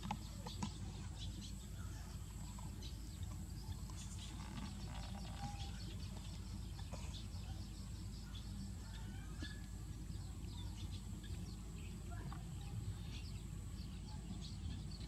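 Outdoor background of a steady low rumble with faint, scattered short bird chirps and a thin, steady high tone.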